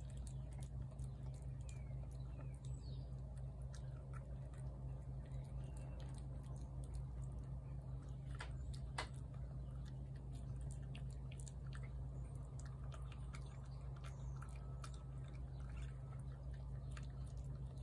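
A cat eating wet cat food from a plate: faint, irregular chewing clicks over a steady low hum.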